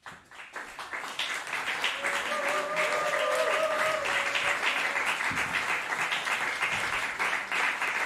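Audience applauding after a jazz piece ends, the clapping swelling over the first couple of seconds and then holding steady. About two seconds in, one voice in the audience lets out a long, wavering held cheer over the clapping.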